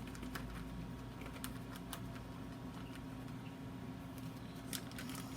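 Sticky shampoo-and-cornstarch slime being kneaded by hand, giving faint scattered clicks and small pops as it sticks to and pulls off the fingers.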